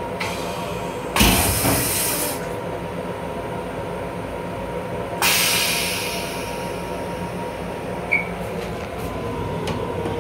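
Train restroom toilet flushing: a sudden loud rush about a second in that lasts about a second, then a second hiss about five seconds in that fades over two seconds, over the steady hum of the running railcar.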